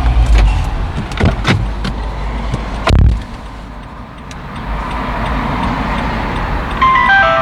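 Car door shut with a single loud thump about three seconds in, after a few lighter clicks and knocks. Near the end comes a short run of falling electronic beeps.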